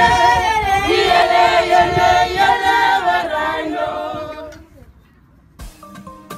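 A group of voices singing together unaccompanied, which fades out about two-thirds of the way through; after a short quiet gap, light instrumental background music with plucked notes starts near the end.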